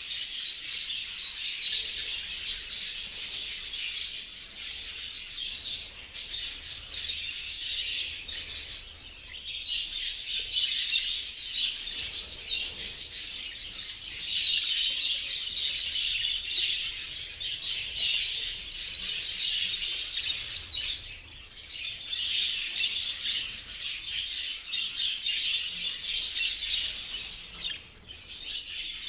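A flock of budgerigars chirping and chattering continuously, many short high calls overlapping.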